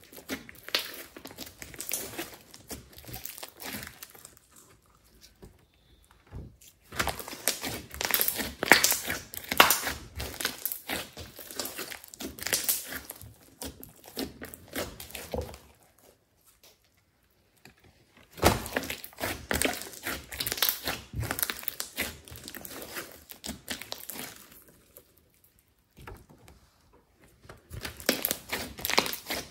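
Hands kneading, poking and folding glossy slime mixed with clay, making a dense run of small sticky clicks and pops. It comes in bouts of several seconds with brief pauses between, and the first few seconds are softer.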